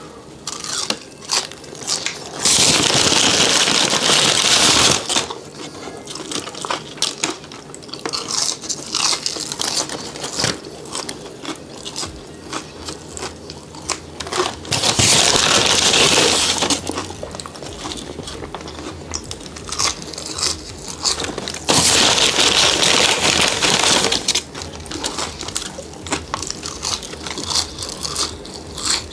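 Close-miked chewing and mouth sounds of a person eating French fries, with small crunches and clicks. Three times a paper bag rustles loudly for a few seconds: about two seconds in, midway, and about two-thirds through.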